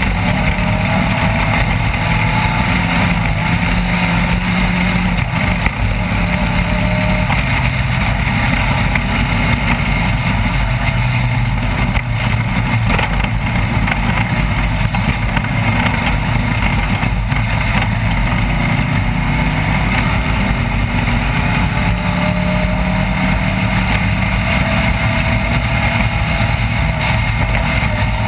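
Off-road race vehicle's engine running hard and continuously, its pitch slowly rising and falling with the throttle, under a steady rush of wind and rattle.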